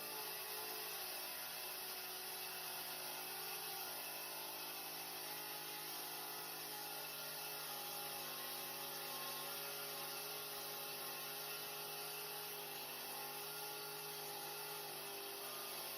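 A power tool's motor running steadily, its hum and whine unchanged throughout.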